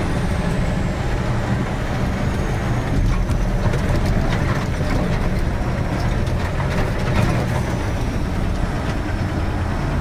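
Heavy truck engine running steadily under load, heard from inside the cab while it drives over a rough dirt track, with knocks and rattles of the cab and a faint high whine that slowly falls in pitch.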